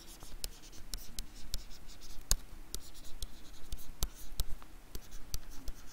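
Stylus writing on a tablet: irregular taps and scratches as the letters are drawn, several clicks a second.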